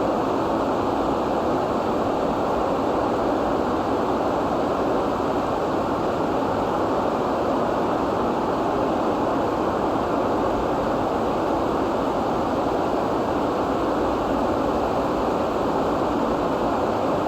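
Steady rain: an even, dense rush of noise with no single drops standing out.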